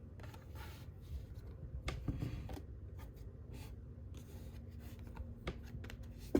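Baseball trading cards being slid and flipped through by hand, a soft rustle of card stock with a few light clicks and a sharper tap at the end.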